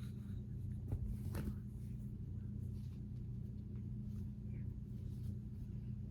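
Faint rustling and light brushing of hands braiding hair, over a steady low background hum, with a couple of slightly louder brushes about a second in.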